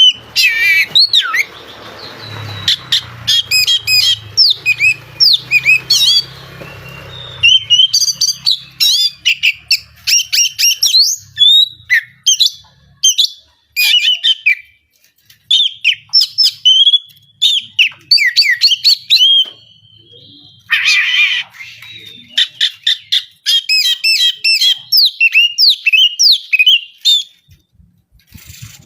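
Oriental magpie-robin (kacer) singing loudly in fast, varied phrases of whistles, chirps and harsh notes, broken by short pauses.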